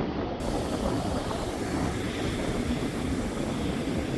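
Steady rushing wind on the microphone, mixed with waves washing at the water's edge.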